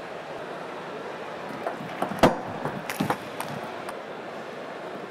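Table tennis ball clicking off bats and table: a handful of sharp, irregularly spaced knocks between about two and four seconds in, the loudest a little after two seconds, over a steady arena background hum.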